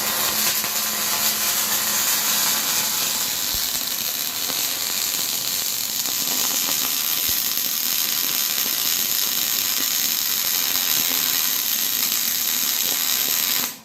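Electric arc welding overhead: a steady, loud crackle and hiss from the arc throughout one continuous bead, which cuts off suddenly at the end when the welder stops.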